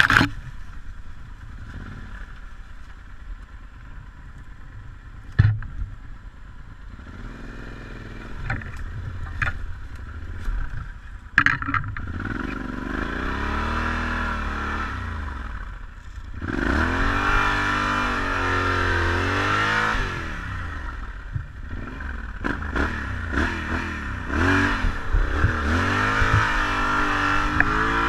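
Yamaha Super Tenere 1200's parallel-twin engine on an off-road ride, running at low throttle for the first several seconds, then revving up and down again and again. Clattering knocks and scrapes from brush and the bouncing bike, with two sharp loud knocks about five and eleven seconds in.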